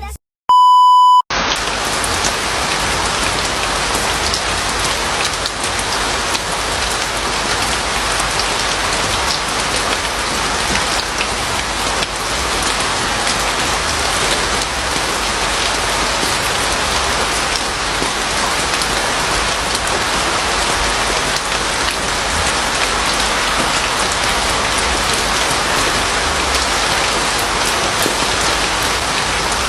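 Steady rain falling, an even pattering hiss without a break. Just after the start comes a brief loud electronic beep, the loudest thing here.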